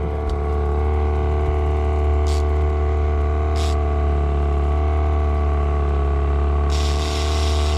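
Boat engine running steadily at trolling speed, a low steady drone with a constant hum of tones above it. Short high hisses come in twice mid-way, and a longer hiss starts near the end.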